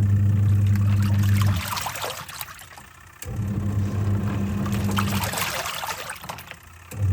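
Twin-tub washing machine washing, its motor humming in runs of about two seconds with short pauses between, over water churning and sloshing in the wash tub. The motor switching on and off is the pulsator's stop-start agitation during the wash cycle.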